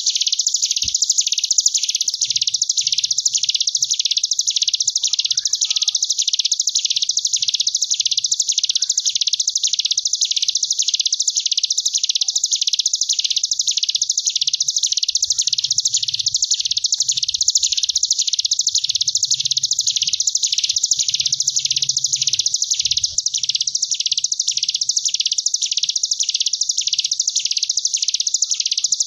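Ciblek gunung, a mountain prinia, singing its continuous 'ngebren' song: an unbroken high, buzzing trill that swells and fades in quick regular waves, like a bee.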